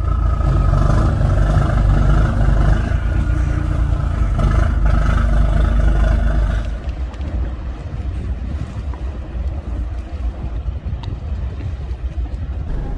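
Fishing boat's engine running as the boat heads out of the harbour, a steady low rumble that eases off a little about six and a half seconds in.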